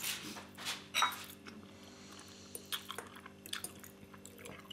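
Spicy instant noodles slurped and chewed off a fork, then metal forks clinking and scraping against a glass bowl in a string of short light taps.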